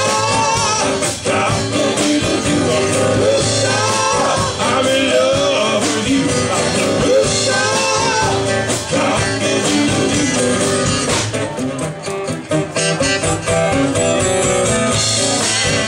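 Live band music: strummed acoustic guitars and bass with voices singing lines that glide up and down in pitch.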